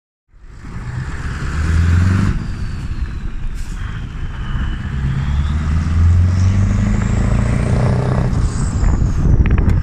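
Scania 143M 500's V8 diesel engine pulling away under load. The engine note builds, drops about two seconds in, then builds again and stays strong.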